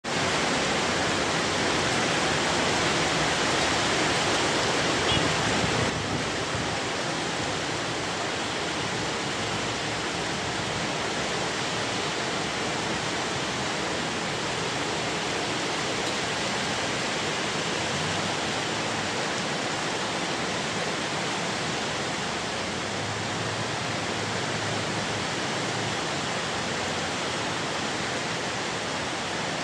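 Heavy rain pouring down in a steady, dense hiss, a little louder for the first six seconds.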